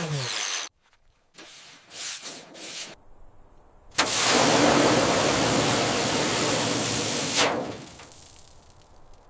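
A power tool winds down in the first second. About four seconds in, a loud steady hiss of spray or air starts abruptly, runs for about three and a half seconds, then fades.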